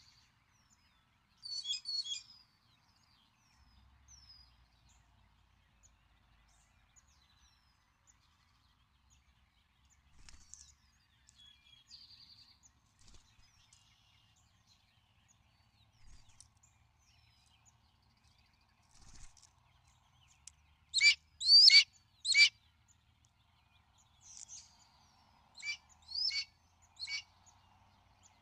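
Wild birds calling: scattered small chirps and whistles, then about three-quarters of the way in three loud, sharp calls close by in quick succession, followed a few seconds later by three more, fainter ones.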